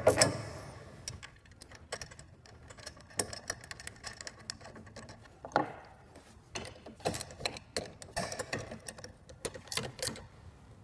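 Metal clinks and quick clicks as a swivel caster, its washers and nut are fitted to a drum sander's leg and the nut tightened with a wrench, with a louder clank at the very start and a denser run of clicks near the end.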